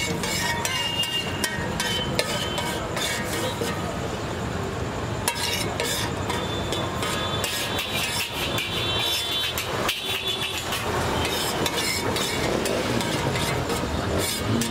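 Busy street ambience: steady traffic noise with scattered voices and frequent clinks and taps of steel plates and utensils.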